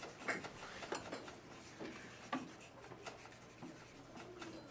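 Marker scratching and squeaking on flip-chart paper in short, irregular strokes as words are written.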